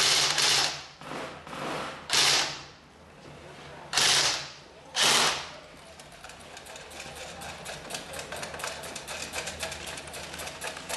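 Airsoft rifle fire: four short, loud bursts close by in the first six seconds, then a long run of rapid, fainter clicking shots.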